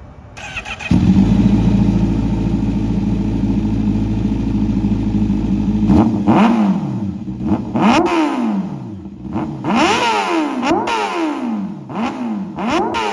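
Sport motorcycle engine running steadily for about five seconds, then revved in a string of quick throttle blips, the exhaust note rising and falling about once a second.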